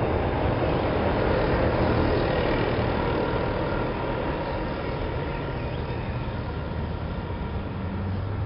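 Steady rumble of a moving vehicle, with a low hum under a dense noise that eases slightly about halfway through.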